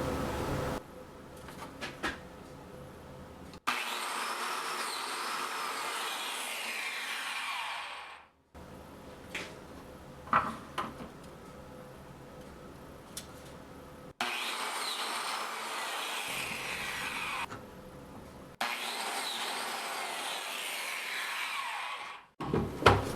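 Biscuit joiner cutting slots in mahogany slabs, running in four short bursts of a few seconds each that start and stop abruptly, with quieter clicks and knocks of handling the tool and boards between them.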